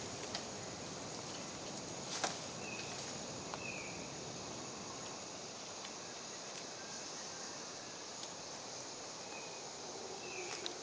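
Steady tropical forest ambience with an insect-like hiss, a sharp click about two seconds in and a few fainter clicks, and four brief falling chirps.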